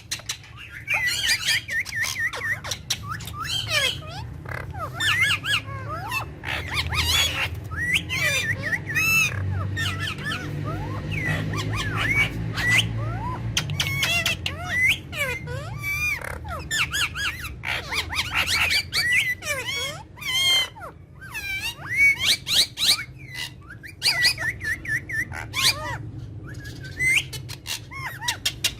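Pet parrots calling and chattering to each other: a continuous run of quick squawks, chirps and warbling notes that sweep up and down in pitch.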